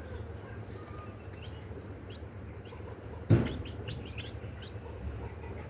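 Birds chirping: many short high chirps scattered through, over a low steady hum. A single sudden loud thump about three seconds in.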